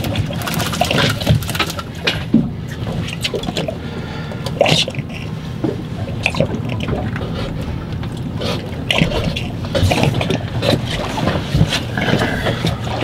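Water sloshing and slapping against a small boat's hull, over a low steady hum, with scattered short knocks as a freshly landed fluke is handled and unhooked.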